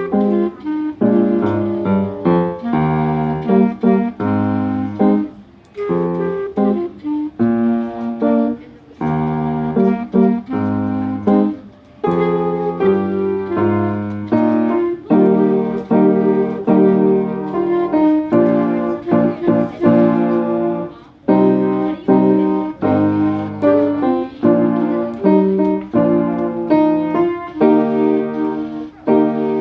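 Instrumental music of a beginning-band piece, with a piano-like keyboard sound prominent, playing a steady line of short and held notes.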